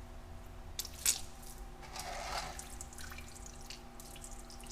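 Old brake fluid dripping and trickling from the opened bleeder screw of a front brake caliper while the brakes are bled, with a couple of light clicks about a second in.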